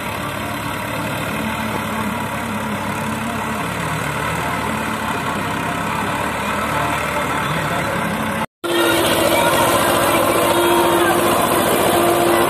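Farmtrac 45 diesel tractor engine running under load as it drags a soil implement through sand, its pitch slowly wavering. About two-thirds of the way through the sound cuts out for an instant, then an Escort 335 diesel tractor engine runs louder with a steady tone, pulling a disc harrow.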